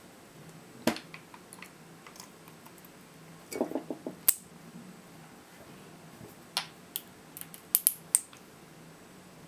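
Pliers gripping and prying the metal connecting tabs on the ends of 18650 lithium-ion cells: scattered sharp clicks and snaps. There is a cluster of knocks about three and a half seconds in and a quick run of sharp snaps near the end.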